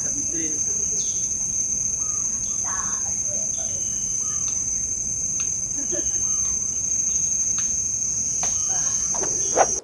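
Steady high-pitched drone of forest insects, with scattered short bird calls and a sharp knock near the end.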